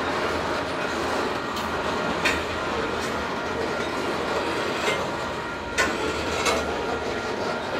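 Loaded covered hopper cars of a long grain train rolling past, a steady rumble broken by sharp wheel clacks at irregular intervals, the loudest about six seconds in.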